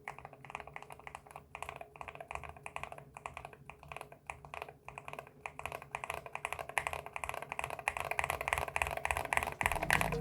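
Fast, continuous typing on an MCHOSE Ace 68 Turbo magnetic keyboard fitted with lightly factory-lubed Gateron Jade Ultra magnetic switches. The keystrokes come thick and quick, getting denser and louder in the second half.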